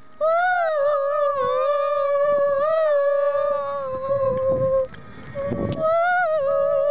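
Girls' voices howling: one long, high, slightly wavering held note lasting about four and a half seconds, then a second one starting near the end.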